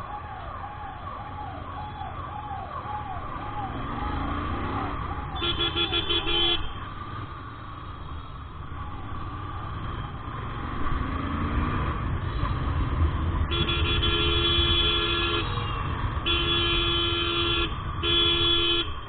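Traffic horns sounding over the steady rumble of a motorcycle ride: a short horn blast about five seconds in, then three more near the end, the first of them about two seconds long. A repeating falling electronic chirp, about three a second, runs for the first six seconds.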